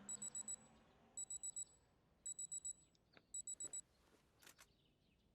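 Digital alarm clock beeping: four groups of four quick high-pitched beeps, about one group a second.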